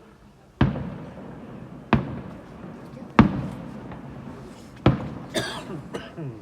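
Fireworks shells bursting: four sharp bangs about one and a quarter seconds apart, each with a rumbling echo, then a brief high hiss falling in pitch near the end.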